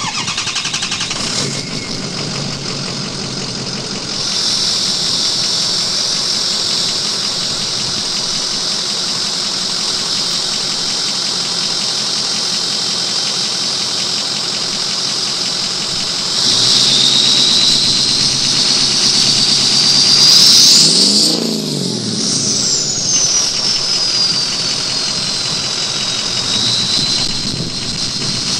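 Ford 6.0L Power Stroke V8 turbo diesel, straight-piped, running with a high turbo whistle over the engine. About two-thirds of the way through it is revved: the whistle climbs, the engine note rises, and then the whistle glides down for several seconds as the turbo spools down.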